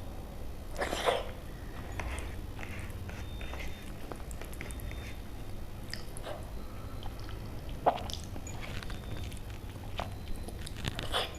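A person eating close to the microphone: chewing and mouth sounds, with a few short, louder bites and smacks spaced a second or more apart, over a low steady hum.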